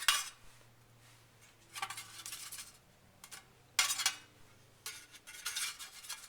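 A utensil scraping and clinking against a metal toaster oven pan as broiled eggplant slices are flipped over, in a few short clatters about a second apart.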